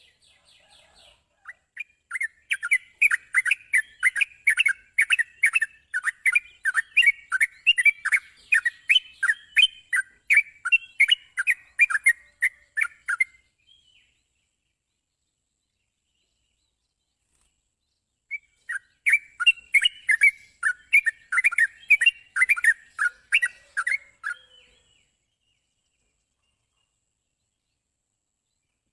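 Yellow-vented bulbul (trucukan) singing: two long runs of quick repeated notes, about three a second. The first run lasts roughly eleven seconds. The second starts after a few seconds of silence and lasts about six.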